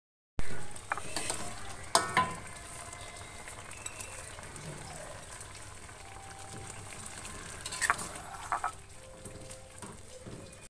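Spicy squid sauce sizzling in an aluminium wok, with a metal spatula knocking against the wok a few times, around two seconds in and again near eight seconds.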